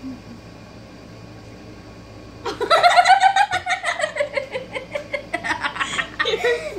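Young girls laughing hard in quick, repeated pulses of giggling, starting suddenly about two and a half seconds in.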